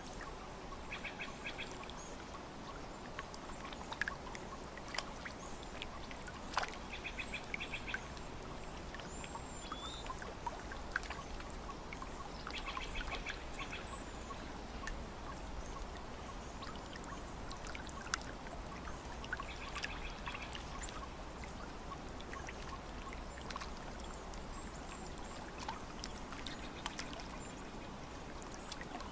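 Lake water lapping and trickling at the shore in small splashes and drips, with birds calling now and then: a short rapid chattering call comes back about every six seconds, with thin high chirps between.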